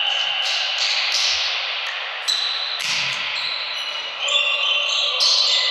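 Sports-hall din during an amateur volleyball game: a steady hubbub of voices in a large echoing hall, broken by several sharp knocks of the ball being hit or bouncing.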